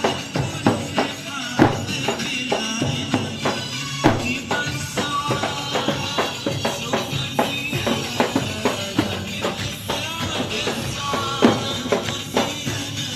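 Folk dance music: a tabl drum beats strong, repeated strokes under a high, wavering melody.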